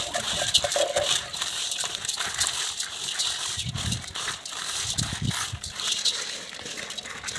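Watermelon seeds coated with a pink seed-treatment powder being stirred and scooped by hand with a small plastic container in a metal basin: a continuous dry rattle and rustle of seeds sliding over each other and scraping the metal, with a couple of short low sounds about four and five seconds in.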